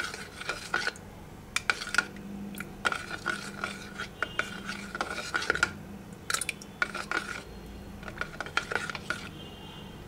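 Steel spoon stirring milky instant coffee in a microwave-safe bowl, clinking and scraping against the bowl over and over, stopping about nine seconds in. This is the mixing step after the first short spell of heating in the microwave.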